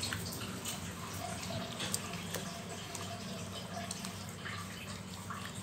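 Faint wet squelching and small clicks as a bare hand squeezes and turns raw chicken pieces in a thick yogurt marinade, over a steady low hum.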